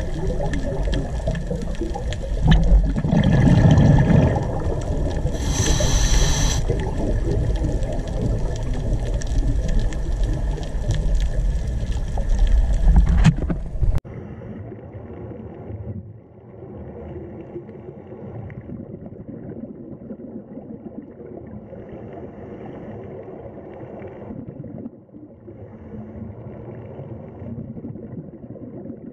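Underwater ambience recorded by a diving camera: steady water noise with louder low surges and a short hiss about six seconds in. After a cut about halfway it turns quieter and duller.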